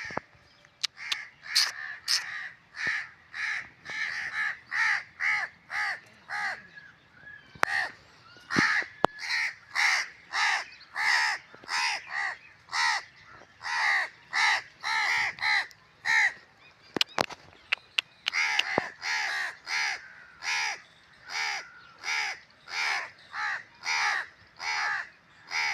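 Crows cawing over and over in a rapid series, about two caws a second, breaking off for a couple of seconds about two-thirds of the way through before starting again. A few sharp clicks are heard along with the caws.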